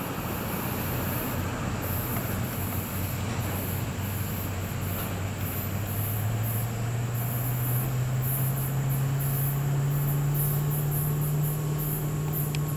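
A GE AC4400CW diesel locomotive approaching with its 16-cylinder engine droning, the drone rising in pitch about halfway through. A high, pulsing buzz runs over it.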